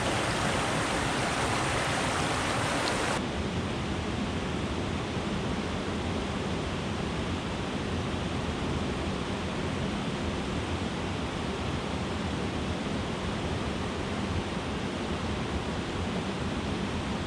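Steady rushing of water over Strong Falls on the Peshtigo River. About three seconds in, the rush abruptly becomes duller and a little quieter.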